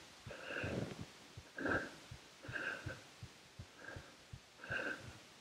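A man breathing hard close to the microphone: five heavy breaths about a second apart, with faint low taps between them. It is the excited breathing of a hunter with a buck in view, trying to calm himself.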